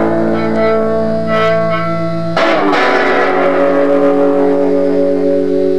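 Guitar music: held chords ringing out, with a new chord struck about two and a half seconds in.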